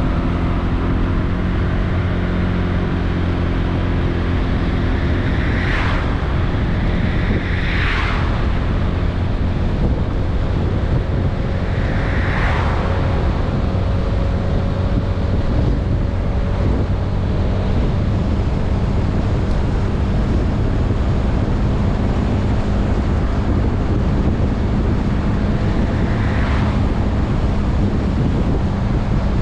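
Wind rushing over the microphone of a moving Honda Vision 110 scooter, its single-cylinder engine humming steadily underneath. Four brief whooshes of vehicles passing: about six seconds in, again around eight and twelve seconds, and once near the end.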